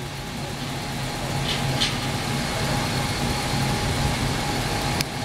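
Car engine idling steadily, with a single short click near the end.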